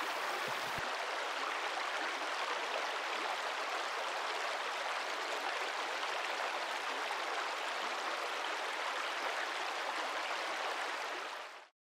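Steady rushing noise of flowing water, even in level, that cuts off abruptly near the end.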